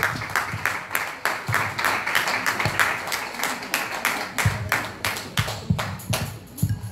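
Rhythmic group hand clapping, about four claps a second, along with music that has a low drum beat.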